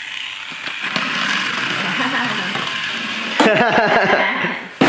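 Small battery-powered toy car whirring along a snap-together plastic track, running fast. A voice comes in over it during the last second and a half.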